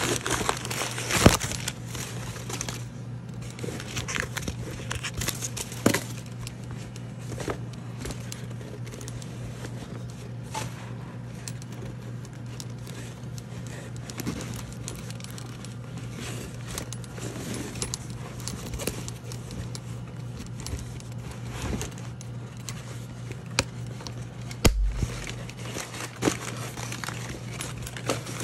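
Handling of a clutch purse and its tissue-paper packing: rustling, light scrapes and scattered clicks of the purse's metal frame, over a low steady hum. A sharp thump about 25 seconds in.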